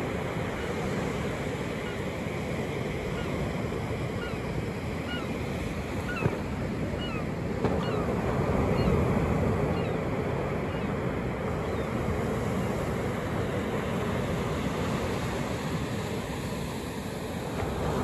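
Ocean surf breaking and washing up a sandy beach: a steady roar of water that swells about halfway through and eases off near the end. A few faint, short falling chirps sound over the surf in the first half.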